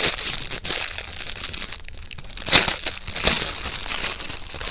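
Plastic packaging crinkling and rustling as it is handled and pulled open, in uneven bursts with the loudest a little past halfway.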